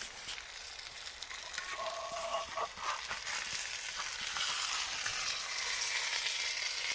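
Food sizzling as it fries in a pan, a steady hiss that grows a little louder toward the end.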